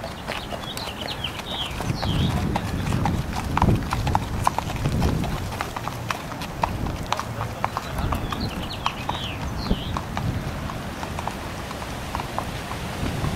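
Horses' hooves clip-clopping on pavement at a walk, an uneven run of hoof strikes from more than one horse.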